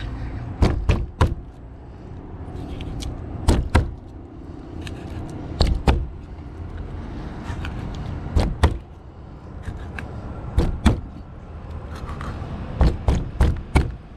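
Knife blade knocking on a plastic cutting board as a small barracuda is scored crosswise, sharp knocks in pairs every couple of seconds with a quick run of several near the end, over a steady low background.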